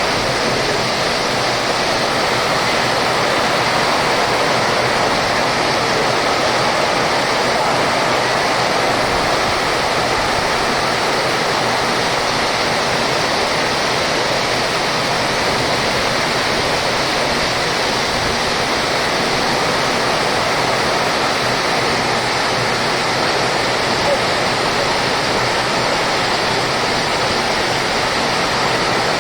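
Heavy rain pouring down in a dense, steady hiss that does not let up.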